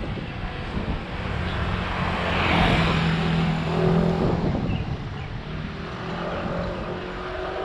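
A motor vehicle, most like a car, passes close by, its engine and tyre noise swelling and fading over about three seconds near the middle. Steady wind rumble on the microphone of a moving bicycle runs underneath.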